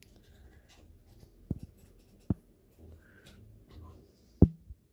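Handling noise: light rustling and scraping with three sharp clicks or taps, the loudest near the end.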